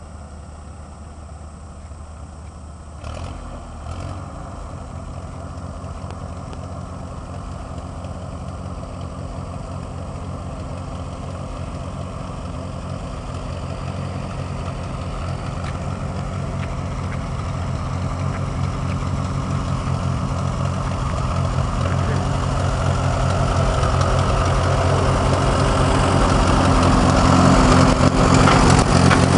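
Farm tractor engine running steadily, growing louder as the tractor draws closer. Two short knocks come about three and four seconds in.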